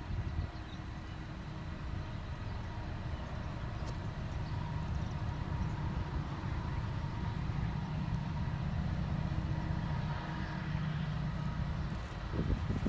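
Diesel locomotives of an approaching coal train, heard before they come into view: a steady low engine rumble that grows slowly louder.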